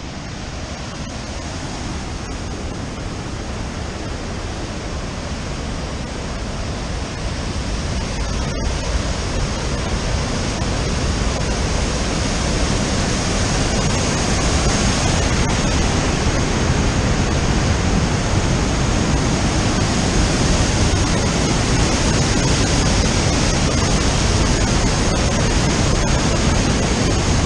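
Whitewater river rushing and cascading through a narrow rock gorge: a steady, loud roar of water that grows louder over the first half.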